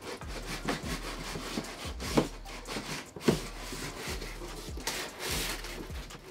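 Large cardboard TV box sleeve being slid up and off its base, the cardboard rubbing and scraping against the packing, with a couple of knocks about two and three seconds in.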